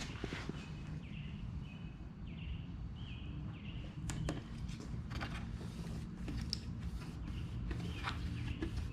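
A bird chirping in a quick series of short repeated calls, over a low steady background hum, with scattered light clicks and taps of handling.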